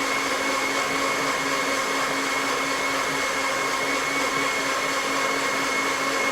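Electric blender running at a steady speed: a high, even motor whine over a whirring rush.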